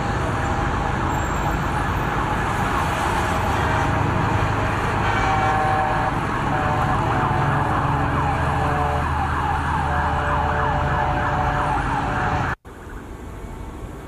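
Several emergency-vehicle sirens wailing at once, their pitches sweeping up and down over each other, above a steady rumble of road traffic. The sound cuts off suddenly about a second and a half before the end, leaving only quieter background noise.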